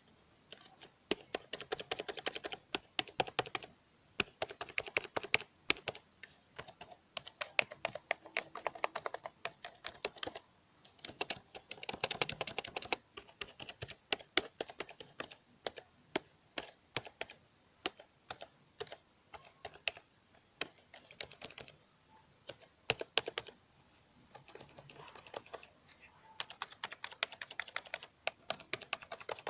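Battery-powered computer keyboard being typed on fast, keys clicking in quick runs broken by short pauses.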